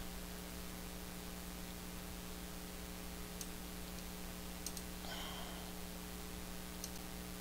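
A few faint computer mouse clicks over a steady low electrical hum and hiss, with a short soft rustle about five seconds in.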